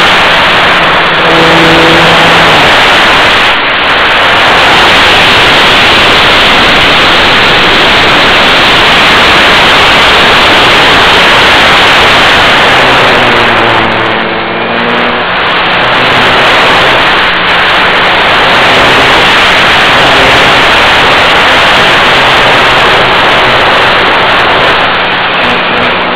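Propeller aircraft in flight heard close to the propeller: a loud, steady rush of motor, propeller and wind noise, with faint engine tones that waver in pitch around the middle.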